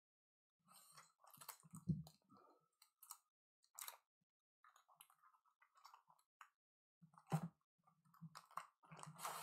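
Faint clicks, rustles and soft taps of trading-card packs being handled and set down on a table. The taps are a little louder about two seconds in and again near the end.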